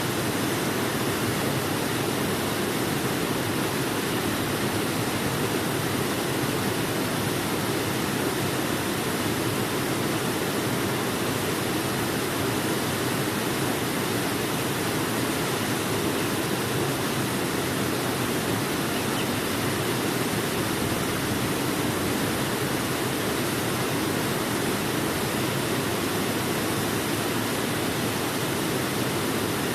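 Waterfall: a steady, even rush of falling water, fuller in the low-middle range, with no change throughout.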